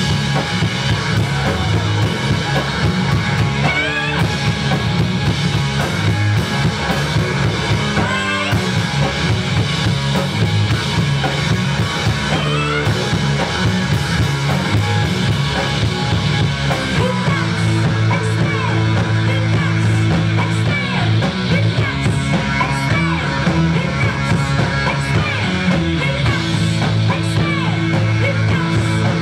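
Live rock music played loud on electric bass guitar and a drum kit.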